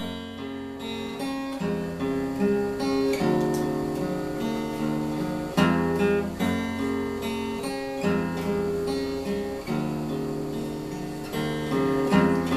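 Acoustic guitar played solo as a song's intro: chords picked note by note, with a few harder full strums.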